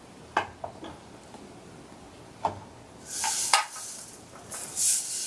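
Sprinkle-filled plastic tumbler being handled: a few light plastic clicks, then the sprinkles rattling twice as it is shaken, about three seconds in and again near the end.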